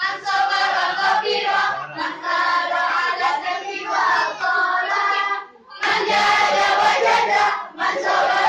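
A group of girls singing together in unison, breaking off briefly about five and a half seconds in and then carrying on.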